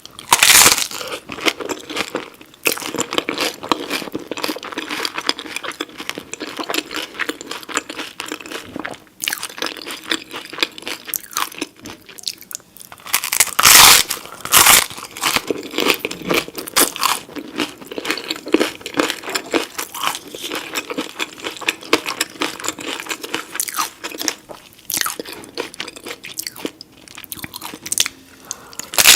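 A person biting and chewing crunchy food close to the microphone: dense, irregular crackling crunches, with the loudest bites about half a second in and again around the middle.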